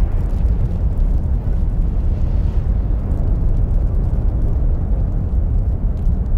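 A loud, steady low rumble with faint crackling above it.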